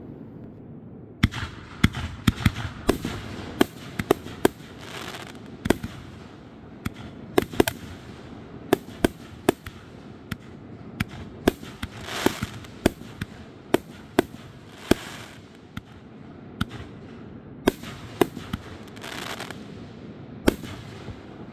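Aerial fireworks bursting: a long irregular series of sharp bangs beginning about a second in, some coming in quick succession, with brief hissing between them.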